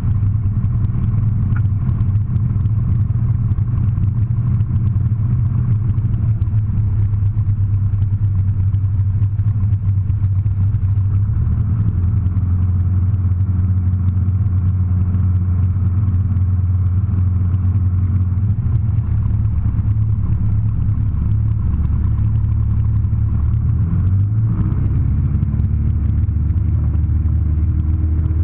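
Light aircraft's piston engine and propeller running steadily at low power, heard from inside the cabin. Near the end the engine speeds up and holds a higher pitch as power is added for the takeoff run.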